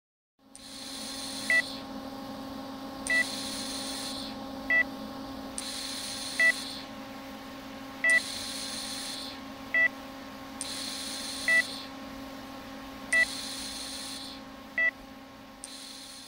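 Heart-rate monitor beeping, one short high beep about every second and a half. Under it runs a steady electrical hum, with a hiss that swells and fades in the same rhythm.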